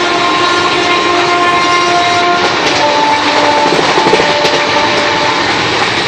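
Passenger train running, heard from inside a carriage: a steady rush of running noise with long, held tones over it that change pitch about halfway through.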